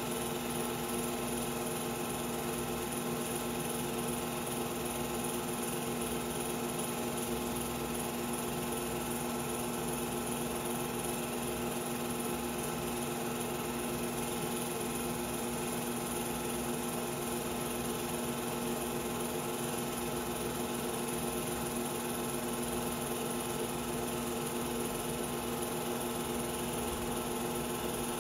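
Steady mechanical whir and hum of a film projector running the reel, unchanging throughout, with no sound from the game itself.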